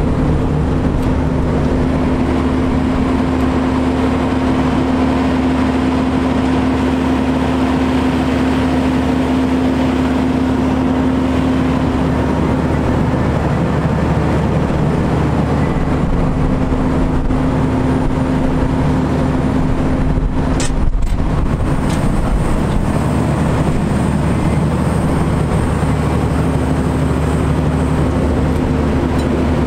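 The truck's Cummins ISM diesel engine running steadily with a constant low hum.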